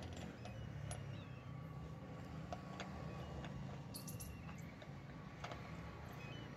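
Faint metallic clicks of wheel nuts being spun by hand onto the studs of a rickshaw wheel hub, over a steady low rumble. A few faint high chirps.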